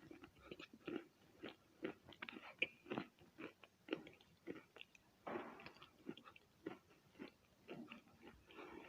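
Wet chalk being bitten and chewed close to the microphone: a quick run of soft, uneven crunches, with a longer crunch about five seconds in.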